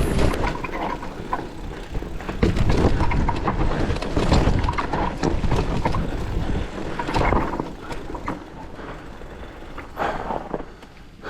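Electric mountain bike riding a rough dirt trail: low rumble of the tyres and wind on the camera microphone, with many quick knocks and rattles of the bike over bumps, easing off about eight seconds in.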